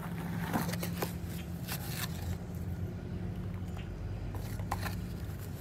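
Wooden spoon scooping baking soda out of a cardboard box: a few short dry scrapes and rustles, mostly in the first two seconds and again near the end, over a steady low hum.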